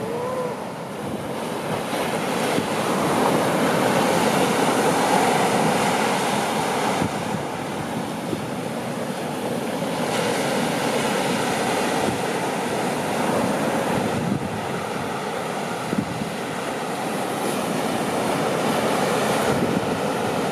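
Surf breaking and washing up a sandy beach: a steady rushing that swells louder a few seconds in, then eases.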